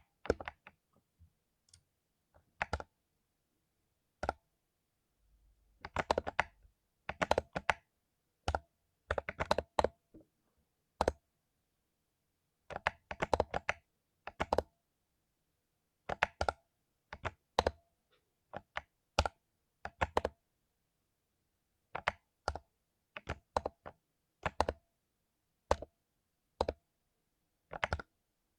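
Mechanical keyboard with lubed Cherry MX Silver linear switches being typed on. The keystrokes come in irregular bursts, some fast runs and some single or paired presses, with short pauses between them.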